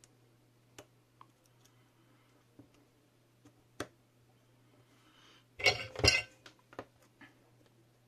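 A small circuit board and its metal battery-holder parts being handled on a work surface: a few faint clicks, then a brief burst of clinking and rattling a little past halfway, followed by a few lighter clicks.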